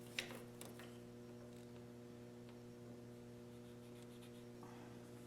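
Near silence: a steady low electrical hum, with a couple of faint ticks about a second in.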